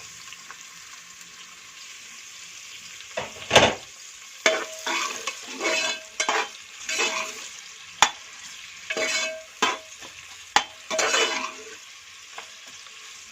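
Onions frying in hot oil with a steady sizzle. From about three seconds in, a utensil stirs and scrapes them around the metal pan in repeated strokes, with one sharp knock early in the stirring.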